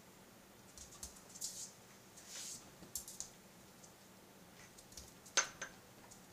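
Cat's paws and claws tapping and scratching at a projection screen: a few light clicks and short scratchy rustles, with the sharpest click about five seconds in.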